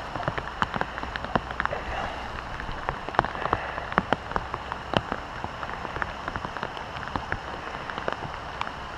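Rain falling on a river pool: a steady hiss dotted with many irregular, sharp ticks of single drops landing close by.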